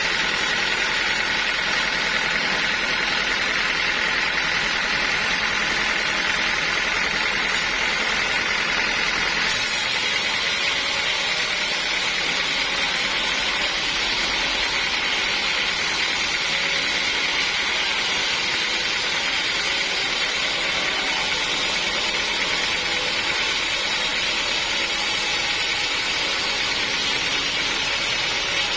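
Sawmill saw machinery running steadily with constant mechanical noise; about ten seconds in the sound turns brighter in the upper range and stays so.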